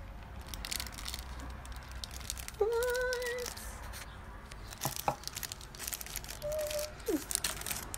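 Clear plastic packaging crinkling and rustling in irregular bursts as hands handle and sort through bagged items in a box.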